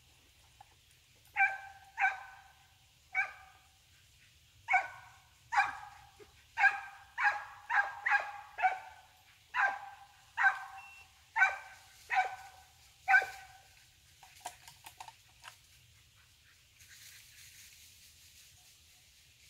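Hunting dog barking in a string of about fifteen sharp barks spread over some twelve seconds, then falling silent.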